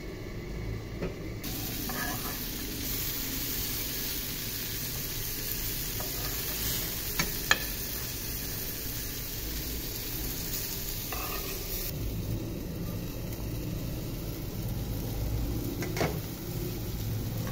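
Eggplant slices and green chillies sizzling as they fry in oil in a pan, with a few spatula clicks against the pan about seven seconds in. The sizzle eases to a quieter frying sound about twelve seconds in.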